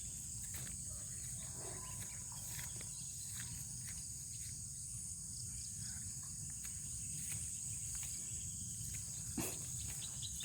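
Steady high-pitched chorus of field insects, crickets or similar, with a faint low rumble underneath and a few light ticks.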